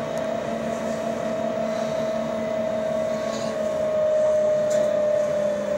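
Translohr rubber-tyred tram running along its guided track, heard from inside the rear driving cab: a steady running hum with an electric motor whine that falls slowly in pitch.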